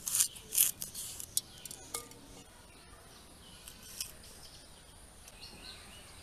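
Green chili being cut on a boti's curved blade: a quick run of crisp cuts in the first second and a half, then a few scattered cuts and clicks up to about four seconds in.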